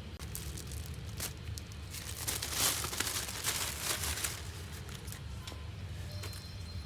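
Crinkling and tearing of plastic packaging being handled, with a few sharp clicks, loudest about two to four seconds in, over a steady low hum.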